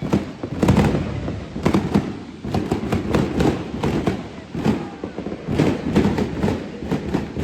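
New Year's fireworks and firecrackers going off in a dense, irregular string of pops and bangs, several a second, over a continuous low rumble.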